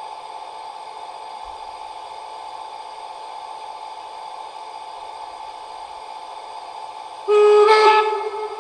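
Sound decoder of a Gauge 1 model class 64 steam locomotive playing its steady standing-engine running sound, with a short, loud steam whistle blast about seven seconds in that then fades away.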